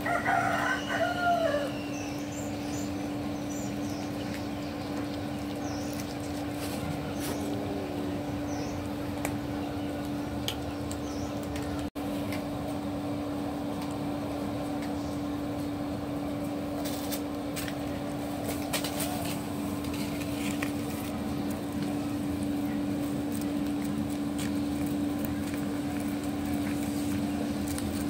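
A steady low hum over outdoor background noise, with a few short, bending animal calls in the first two seconds.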